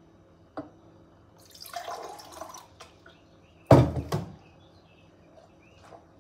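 Brine dripping and splashing as a fermented dill pickle carrot is lifted out of the jar. About two thirds of the way through comes a loud, sudden crunch as the carrot is bitten.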